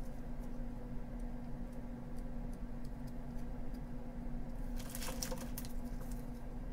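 Gloved hands pressing soap pieces into soft soap batter: soft squishy handling noises and small clicks, with a brief rustle about five seconds in, over a steady low hum.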